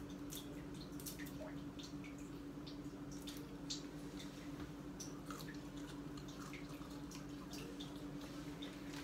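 Close-up eating sounds: scattered small wet clicks of chewing and lip smacks, over a steady low hum.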